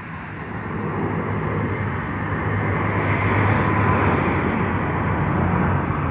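Airbus A330-900neo's Rolls-Royce Trent 7000 turbofans at takeoff power during the climb-out, a steady jet roar that grows louder over the first three seconds as the airliner passes and then holds, with a faint whining tone near the middle.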